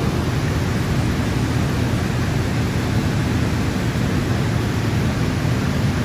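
Steady rushing noise with a low hum underneath, unchanging throughout, with no distinct knocks or clicks.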